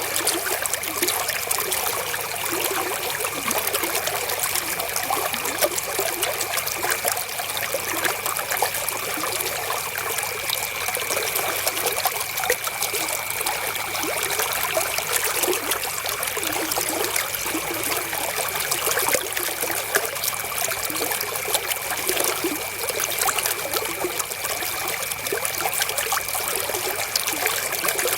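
River water flowing and trickling steadily over stones. A faint steady high tone runs underneath.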